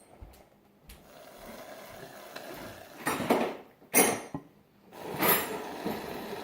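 Aerosol can of shaving cream spraying foam in three short spurts about a second apart, the middle one loudest and sharpest.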